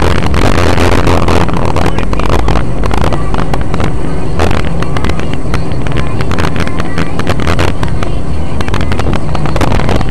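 Dashcam recording from inside a moving car's cabin: steady low engine and road rumble as the car drives along the highway, with frequent short knocks and rattles.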